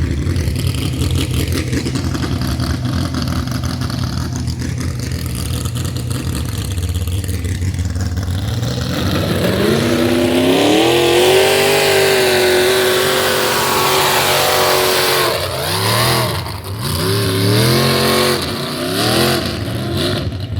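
Big-block pulling tractor engine idling, then revving up about nine seconds in and holding high revs through the pull. Near the end the revs sag and surge several times, which the onlooker puts down to the engine not pulling fuel or being short of gas.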